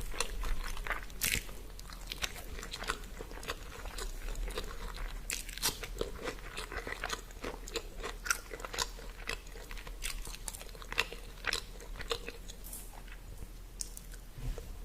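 A person chewing food, with irregular sharp crunchy bites scattered through.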